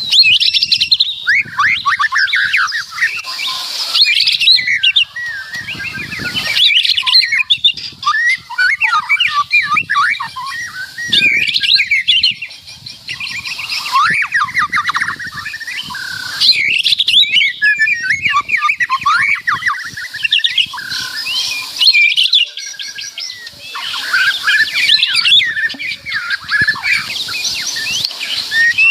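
White-rumped shama (murai batu) singing loudly: long, varied phrases of quick sliding whistles and chatter, broken by brief pauses of a second or so.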